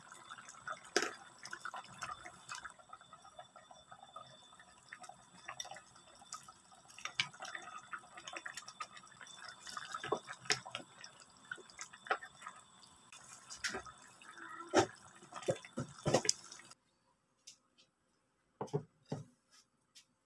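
Pork stewing in coconut milk in a pan, simmering with a steady crackle of bubbling and popping and occasional louder clicks and knocks. It cuts off near the end, leaving only a few faint clicks.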